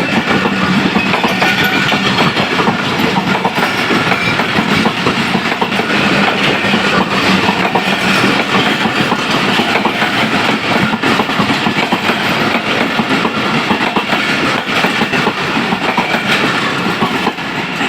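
Passenger train rolling steadily along the track, its wheels clattering over the rails in a continuous clickety-clack.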